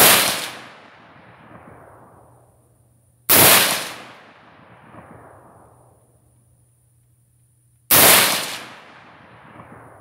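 Three single rifle shots from a Radical Firearms AR-15 chambered in 7.62x39, about three and a half to four and a half seconds apart, each sharp crack followed by an echo that dies away over a second or two. Slow, aimed shots fired while sighting in the scope.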